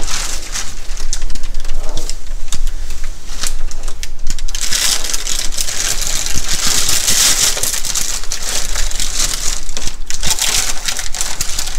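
Shipping packaging being handled: plastic and liner material crinkling and rustling with small knocks and scrapes, loudest in the middle.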